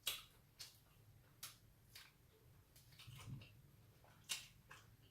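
Quiet mouth sounds of chewing a taco: about eight small, irregular clicks and smacks.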